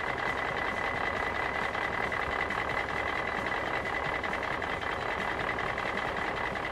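Bulldozer engine sound running steadily, with a constant high whine on top of a rough mechanical rumble, for a toy bulldozer working with its rear rippers.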